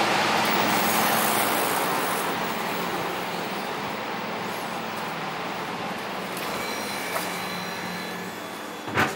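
Ventilation fan blowing: a steady rushing of air with a faint hum, loudest at first and slowly fading. A single sharp knock comes near the end.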